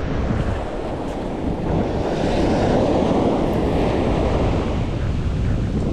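Wind buffeting the microphone over the wash of ocean surf, with the surf swelling louder for a couple of seconds in the middle.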